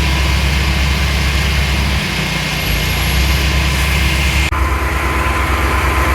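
Engine idling steadily with a low hum and a hiss over it; the sound changes abruptly about four and a half seconds in, to a similar engine drone.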